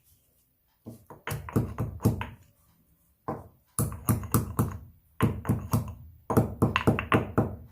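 Whole black peppercorns being pounded to crack them: quick repeated strikes, about five a second, in several runs with short pauses between.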